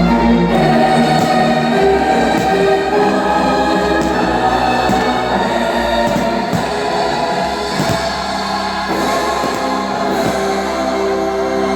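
Choral and orchestral music with long held chords, and a few faint sharp cracks underneath.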